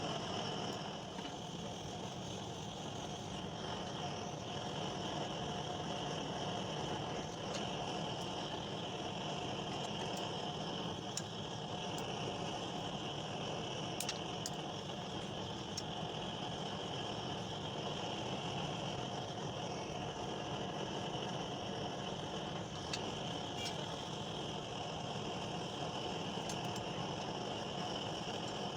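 Steady mechanical hum with a few steady tones, broken by a few faint clicks.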